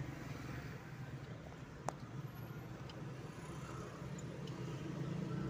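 Car engine and road noise heard from inside the cabin while driving: a steady low hum, with a single sharp click about two seconds in.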